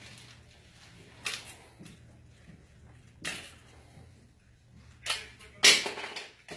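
Hands handling plastic phone chargers and their cables: four short sharp clatters and rustles, the loudest a little before the end, over a faint steady low hum.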